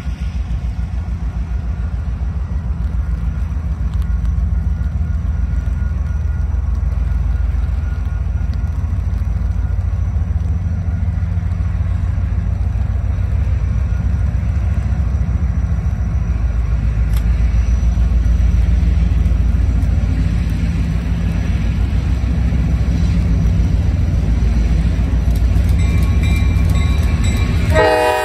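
Diesel locomotive hauling a passenger train as it approaches, a steady low rumble throughout. Near the end its multi-chime air horn starts to blow.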